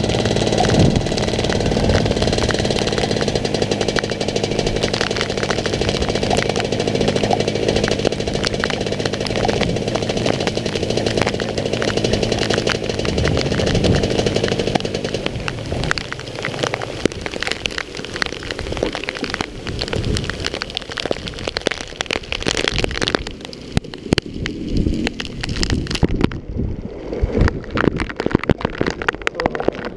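Rotax DD2 125 cc two-stroke kart engine running under way in heavy rain, with rain spattering on the onboard camera. About halfway through, the engine sound fades out, leaving irregular crackling of raindrops hitting the camera.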